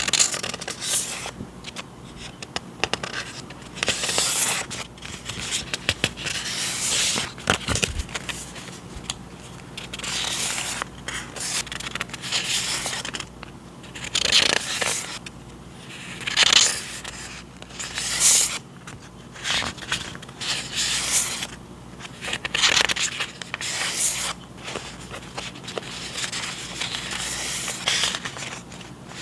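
Paper journaling supplies and their packaging being handled and unwrapped by hand: irregular rustling and scraping strokes, one every second or two.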